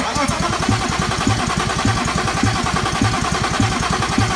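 BMW S52 inline-six being cranked over by its starter motor, starting abruptly, steady with a regular beat, and not catching. The engine gets no fuel or spark, even with a used replacement crankshaft position sensor just fitted.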